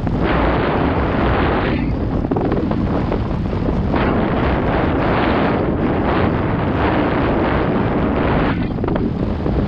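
Wind buffeting a helmet- or bike-mounted GoPro's microphone over the rumble and rattle of a CTM Scroll full-suspension mountain bike on a rough trail descent, with stretches of harsher clatter that come and go.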